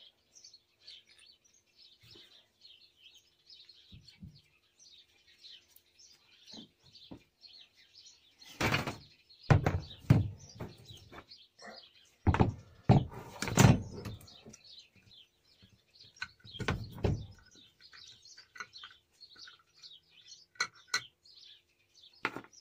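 Metal parts of a mini lathe being handled on a workbench: a series of clunks and scrapes, loudest about 9 to 14 seconds in and again around 17 seconds. Birds chirp faintly in the background throughout.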